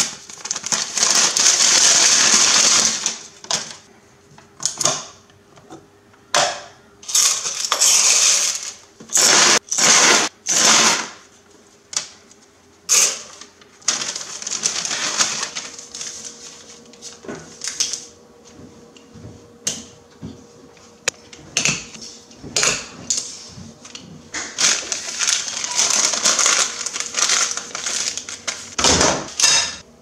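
Brown paper lunch bag being opened, handled and folded by hand: loud crinkling and rustling of stiff paper in irregular bursts, some drawn out and some quick.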